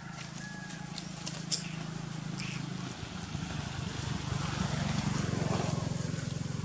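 A motor engine running steadily, a low hum that grows louder in the second half, with one sharp click about a second and a half in.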